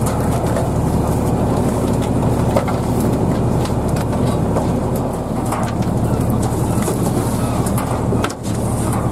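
A fishing boat's engine runs steadily, with scattered knocks and clatter as crab pots and crabs are handled on a metal sorting table.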